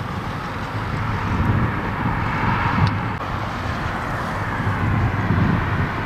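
Road traffic going by, with wind buffeting the microphone. A passing car's tyre noise swells up and fades away in the middle.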